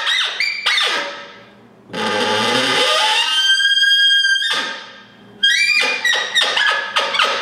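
Trinity Wood open reed elk bugle blown through a grunt tube, imitating a bull elk's bugle. A few short, sharp notes, then a raspy growl about two seconds in that breaks into a high, clear whistle held for about a second, then a run of short, sharp notes near the end.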